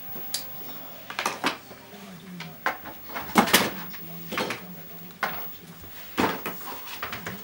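Plastic toys being dropped and tossed into a cardboard box one after another: a string of about ten knocks and clatters at uneven intervals.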